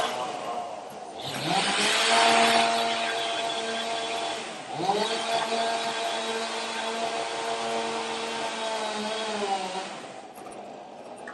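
Chainsaw cutting into a log. The engine revs up about a second in and holds at full throttle, dips briefly midway and revs up again, then drops back off near the end.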